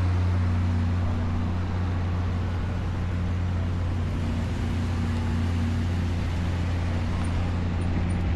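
A vehicle engine running at a steady idle, a constant low hum that does not rev or change.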